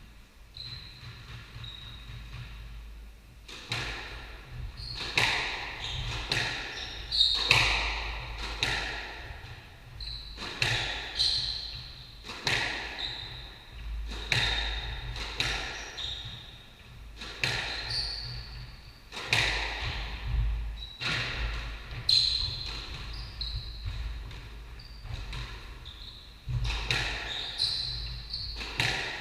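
Squash rally: the ball is struck by racquets and smacks off the court walls with sharp, echoing hits, starting a few seconds in and coming every half second to a second. Shoes squeak briefly on the wooden court floor between the hits.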